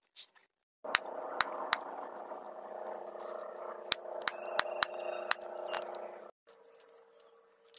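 A knife chopping duck meat on a wooden stump block: a run of sharp, irregular chops over a steady background hum. The hum cuts off near the end.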